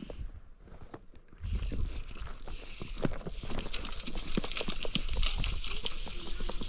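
Fly reel ratcheting as line is wound in on a hooked trout: a fast run of clicks that starts about a second and a half in and keeps on.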